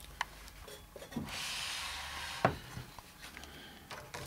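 Flat gray ribbon cables being handled inside a computer case, rubbing against the cards and drive bracket. The rubbing hiss lasts about a second, with a light knock about two and a half seconds in and a few faint clicks.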